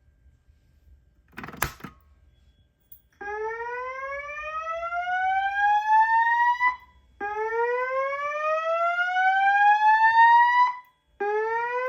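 Notifier fire alarm system speakers sounding a slow whoop evacuation tone: a loud tone that sweeps steadily upward for about three and a half seconds, breaks off briefly and starts again low, heard three times. This is the tone that comes before the recorded voice evacuation message. It is preceded by a single sharp knock about a second and a half in.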